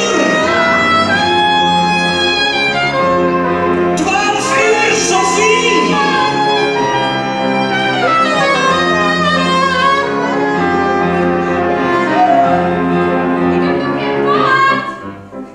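Music with bowed strings playing held, layered notes, dropping away near the end.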